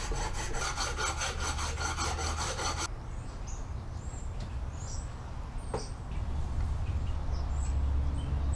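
A carburetor's base flange being sanded flat by hand in quick, even back-and-forth strokes, which stop about three seconds in. The sanding trues up a warped mating surface that was letting in a vacuum leak.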